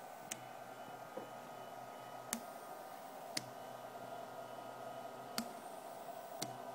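Small desktop CNC machine running, its stepper motors giving a steady faint whine, with sharp clicks every one to two seconds.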